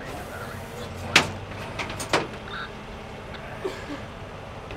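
Sharp knocks and clanks of work around a flatbed tow truck, the two loudest about a second and two seconds in, over the steady low hum of an idling truck engine.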